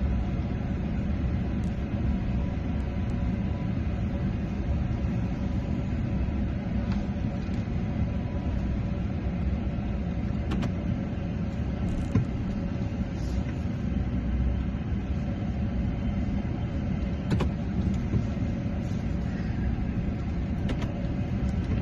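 Steady low rumble with a faint steady hum over it and a few faint clicks, of the kind heard inside a running car.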